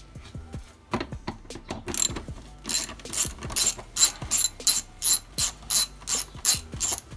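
Hand ratchet turning a hex bit on a long extension to loosen an engine-cover fastener. Its pawl clicks on each return swing: scattered at first, then from about two seconds in a steady run of sharp clicking bursts, about three a second, that stops just before the end.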